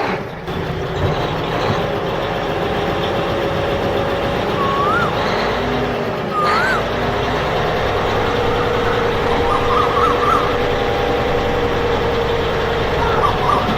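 A small machine running steadily, with a couple of short rising whistle-like chirps in the middle and warbling chirps near the end.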